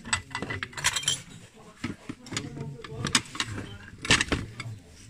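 Ceramic plates clinking against one another as a stack is handled and shifted in a cardboard box, with other odds and ends rattling. The loudest clatter comes about four seconds in, over a background of voices.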